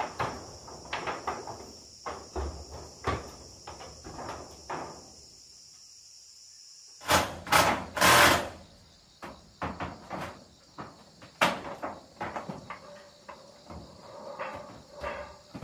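Irregular knocks, taps and rattles of corrugated metal roofing being worked on and handled, with a cluster of several loud metal bangs about midway. A steady high insect drone runs under the first part and stops before the loud bangs.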